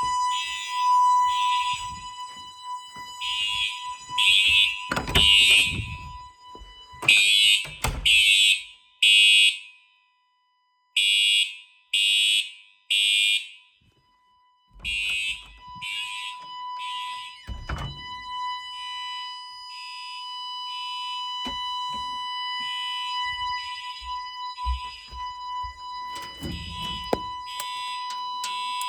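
Fire alarm horns sounding pulsed electronic beeps, mostly in groups of three, over a steady high tone. There are a few low handling thumps, and the beeps turn quieter in the second half.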